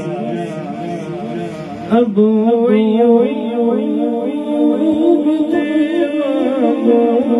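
Recorded vocal music, a singing voice with long ornamented, gliding lines over held tones, played loudly through a Peavey XR696F powered mixer under test. About two seconds in the sound changes abruptly to a new passage, and the top end above it goes duller.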